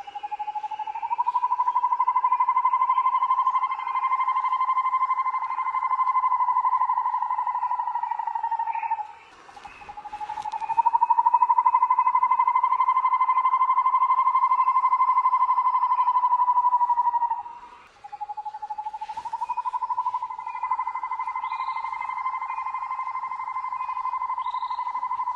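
A loud insect song in three long stretches of about eight seconds each, with short breaks between. Each is a steady, finely pulsing buzz that rises slightly in pitch as it begins.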